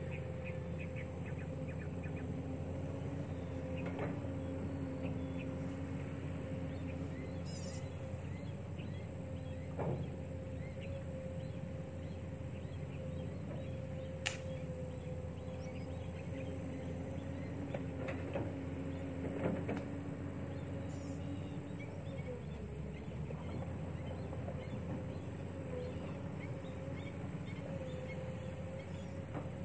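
A motor droning steadily at one pitch, wavering and dipping slightly about twenty-two seconds in, with a few faint clicks and short chirps over it.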